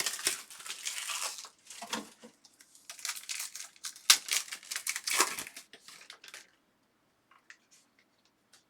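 Foil trading-card pack wrappers being torn open and crinkled by hand, a busy run of crackling and ripping that stops about six and a half seconds in, followed by a few faint ticks.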